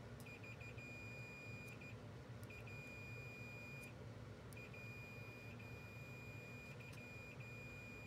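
Digital multimeter's continuity beeper sounding a single high steady tone as the test leads make contact, the sign of a closed circuit. It comes on three times, for about a second, a second and two seconds, each time led by a few quick broken chirps as the contact flickers.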